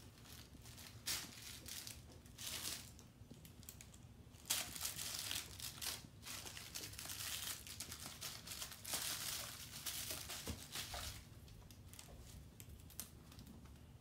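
Faint rustling and scratching of a plush cat bed in irregular bursts as kittens scramble in and out of it.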